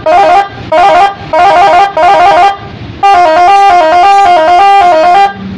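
Custom electronic patwal (police-escort style) telolet siren sounding loudly through its horn speaker: about four short bursts of rapidly stepping tones, then a tone warbling quickly between two pitches for about two seconds, cut off just after five seconds in.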